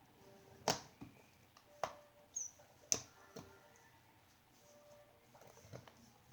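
Butter slime being squished and kneaded by hand as clay is worked in: a handful of soft sticky clicks and pops in the first few seconds, with faint short squeaks.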